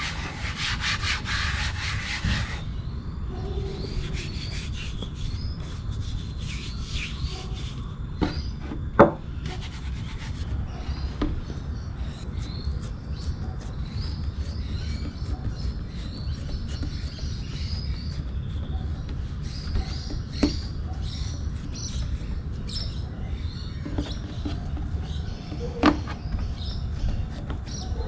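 A palm rubbing oil over a wooden chopping board, a dry swishing scrape for the first couple of seconds. Then quieter sounds of hands pressing dough flat on the board, with a few small knocks.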